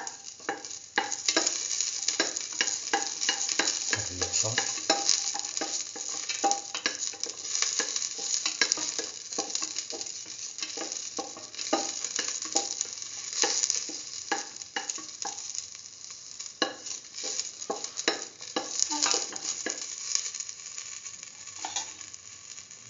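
Shallots sizzling in hot oil in a stainless steel pan, with a spatula scraping and clicking against the pan as they are stirred. The stirring clicks thin out in the last few seconds.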